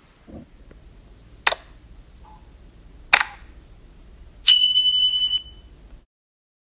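Two sharp clicks about a second and a half apart, then a single steady high-pitched electronic beep lasting about a second.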